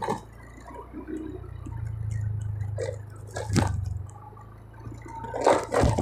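Small motorcycle engine running at low speed, a little louder about two seconds in, with a few sharp knocks near the middle and end.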